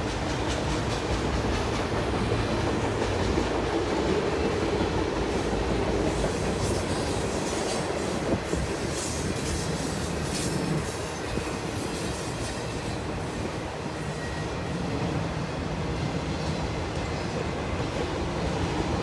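Freight train's enclosed autorack cars rolling past: a steady rumble of steel wheels on rail, with wheel clacks over the rail joints and one sharper clack about eight seconds in.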